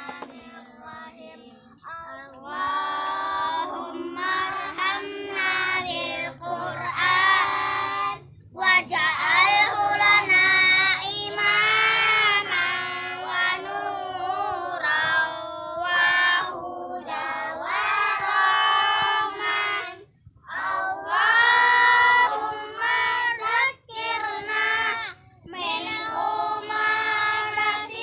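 A group of children chanting aloud together in a sing-song recitation, in phrases broken by short pauses.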